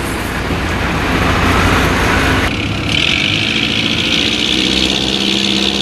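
Small fishing boat's engine running steadily with a low rumble. About three seconds in, a steady higher hiss joins it.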